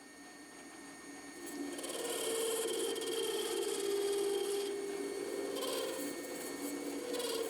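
Metal lathe running while a cutting tool is fed at an angle into the spinning workpiece at the bottom of a turned ball. The cutting noise builds about two seconds in and holds as a rubbing, scraping sound with steady tones that shift slightly in pitch.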